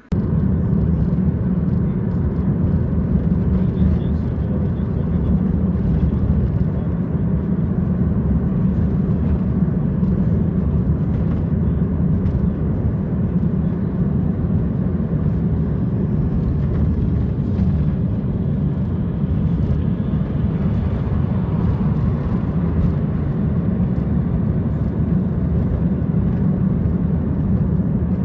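Steady low road and engine noise of a car driving, starting abruptly and running evenly with no change.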